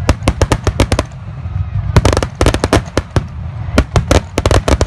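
Fireworks going off in quick volleys of sharp cracks, several a second, in three or four clusters with short gaps, over a steady low rumble.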